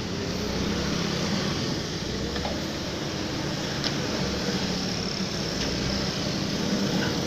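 Diesel engine of heavy earth-moving machinery running steadily with a low hum.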